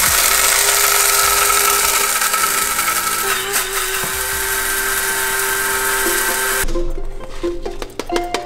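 Push-top electric coffee grinder running with a steady, even whir as it grinds beans, then cutting off about six and a half seconds in.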